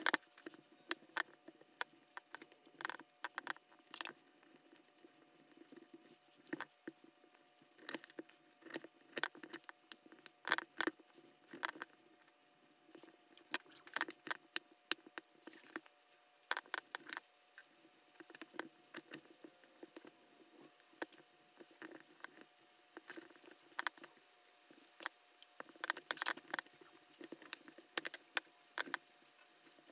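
Irregular light clicks and taps of a fillet knife against a wooden cutting board as a raw deer heart is trimmed and sliced, over a faint steady hum.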